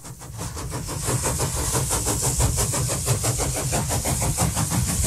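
Steam locomotive running with a rapid, even chuff and a hiss of steam, fading in over the first second.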